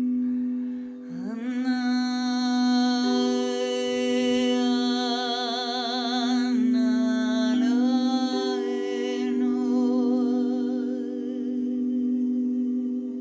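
Crystal singing bowls ringing in steady, overlapping tones, with a voice joining about a second in for wordless humming or toning with a wavering vibrato, pausing briefly midway.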